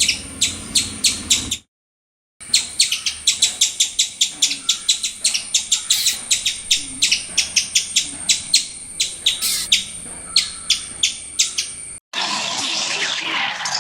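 A small bird chirping rapidly: short, high, sharp chirps, about four or five a second, over a thin steady high tone. The chirping breaks off briefly about two seconds in. Near the end it gives way to a steady rushing noise.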